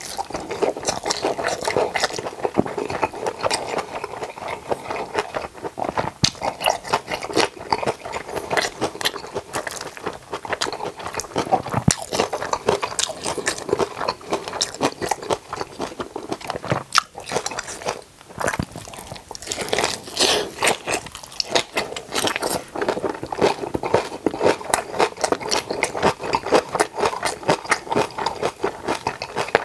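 Close-miked chewing and biting of boiled pork belly (bossam) with napa-cabbage kimchi: a continuous run of small wet clicks and smacks from the mouth.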